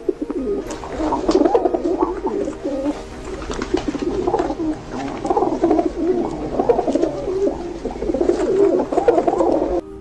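Pigeons cooing, a dense, steady run of overlapping warbling coos that cuts off just before the end.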